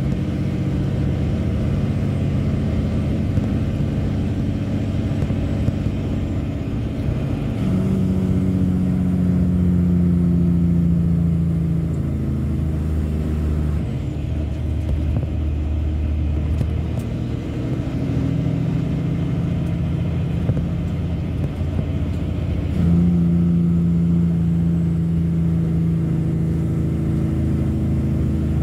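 Log truck's diesel engine running under way, heard inside the cab. Its note jumps higher twice, about eight seconds in and again near the end, and each time slowly sinks afterwards.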